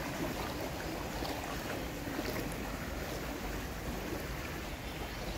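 Muddy floodwater lapping and sloshing in a waterlogged street, with wind buffeting the microphone as a steady low rumble.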